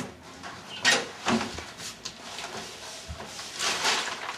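A wooden apartment front door being unlocked and opened: a couple of sharp clacks from the lock and handle about a second in, then softer rattling as the door swings open.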